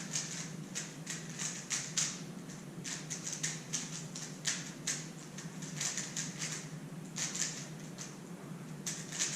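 A 3x3 Rubik's-type speedcube being scrambled by hand: rapid, irregular plastic clicking and clacking as its layers are turned, several turns a second.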